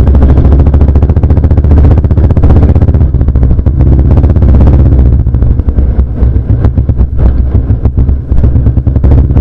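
Motorcycle engine running as the bike is ridden at a steady road speed, its exhaust beat a rapid, even thumping over a heavy low rumble.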